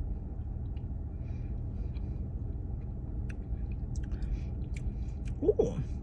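A person sipping a thick frozen coffee drink, with faint small mouth and lip clicks over a steady low rumble, and a short falling "mm" hum of approval near the end.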